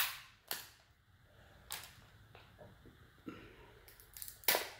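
King crab leg shell cracking as it is broken apart by hand: a sharp crack at the start, another half a second later and one near two seconds in, a few small clicks, then a loud crack near the end.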